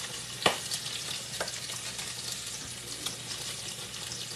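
Chicken legs frying in hot grease as more pieces go into the pot: a steady sizzle with crackling spatters, and a sharp knock about half a second in.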